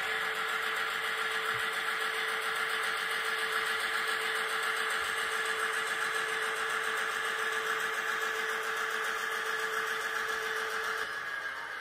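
Diesel engine sound from a ZIMO sound decoder in a Gopher Models GM class locomotive model, played through a 15 by 11 mm sugar cube speaker: a steady, thin engine drone with a held tone that drops away a little before the end.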